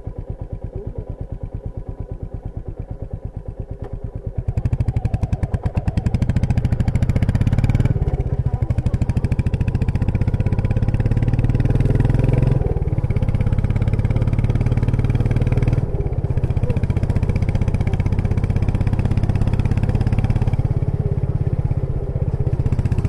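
Royal Enfield Meteor 350's single-cylinder engine running at low throttle with a steady pulse, then opening up about four seconds in and pulling hard under load, with a few brief dips along the way.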